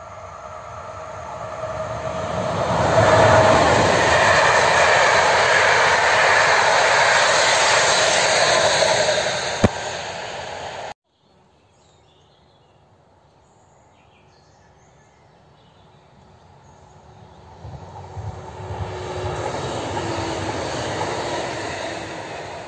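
An InterCity express hauled by an EP09 electric locomotive passes at speed: its rumble and rail noise swell over about two seconds, stay loud with one sharp click near the end, and cut off abruptly. Then a regional passenger train is heard approaching, its noise rising again with a faint steady whine.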